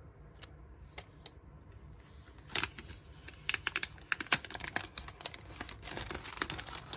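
A sealed iPad keyboard box being opened and its packaging handled: scattered sharp clicks and crackles, thickest in the second half.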